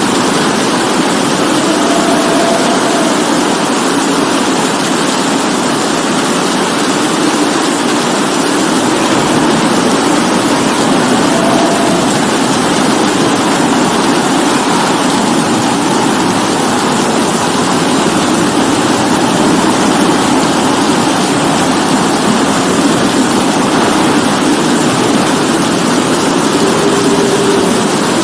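Steady, heavy rainfall: a dense, unbroken hiss of rain with a full low rumble and no pauses.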